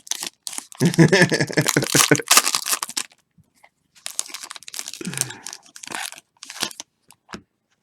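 Plastic or foil trading-card pack wrapper being torn open and crinkled as the cards are handled: dense crackling for about three seconds, then scattered crinkles and ticks.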